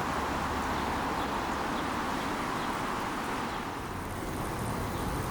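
Steady outdoor traffic noise: an even rumble and hiss of road traffic with no single sound standing out.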